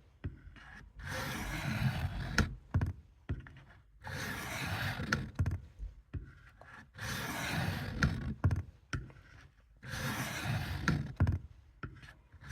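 Knife blade drawn across a wet fine-grit sharpening stone: four scraping strokes about three seconds apart, each ending with a sharp click.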